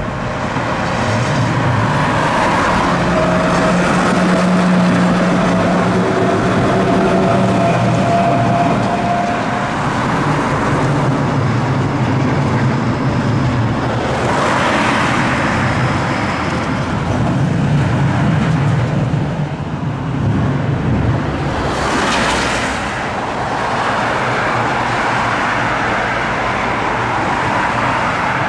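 Trams and cars passing on a city street. A faint whine rises slightly over the first several seconds, and louder swells of passing-vehicle noise come about halfway through and again a few seconds later.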